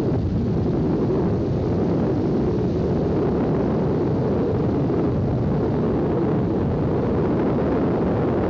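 Steady low rumble of a vehicle's engine and tyres heard from aboard as it drives along a paved road.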